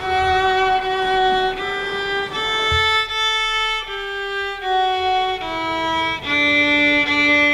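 Solo violin playing a slow melody of held notes, one after another, dropping to lower notes near the end.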